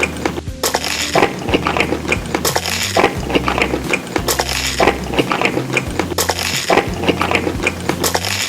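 Background music with a steady beat and bass line repeating about every two seconds, with light clinks of cutlery against a dish.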